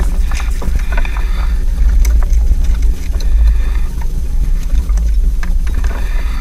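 Steady low rumble aboard a small open fishing boat, with scattered knocks and thuds as a freshly caught dorado (mahi-mahi) is pinned and handled on the deck.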